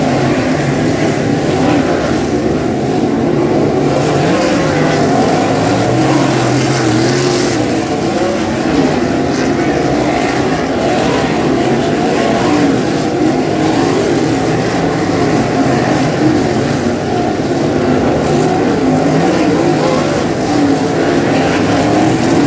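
A field of 360 sprint cars racing, their V8 engines loud and continuous, the pitch rising and falling as the cars pass and go through the turns.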